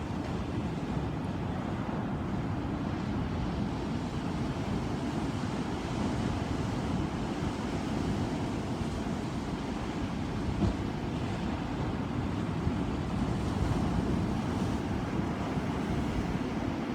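Ocean surf: a continuous rush of waves, heavy in the low end, swelling a little louder about three-quarters of the way through.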